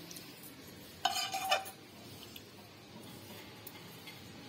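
A spoon scraping and clinking against a serving bowl of cooked curry in one short burst about a second in, then only a low hiss.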